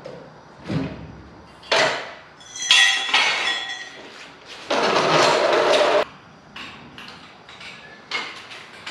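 Metal clanks and clinks of floor jacks being worked and pulled out from under a vehicle body as it settles onto a steel dolly. The loudest clank, about three seconds in, rings briefly. It is followed by a steady harsh noise lasting just over a second, then a run of lighter clicks.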